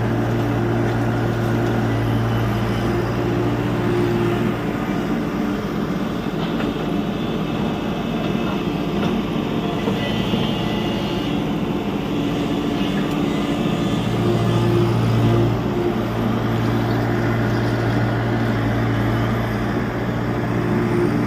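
Tata Hitachi EX70 Super Plus excavator's diesel engine running steadily. The engine note swells for the first four seconds or so and again about two-thirds of the way through as the load changes.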